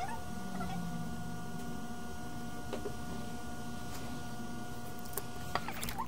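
Steady mechanical hum with a two-note electrical whine that cuts off shortly before the end, with a few light clicks around it.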